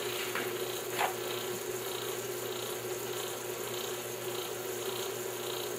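Steady machine hum from the grease-test rig, with a faint hiss that pulses about twice a second. Two brief scrapes of a rag wiping the greasy metal come in the first second.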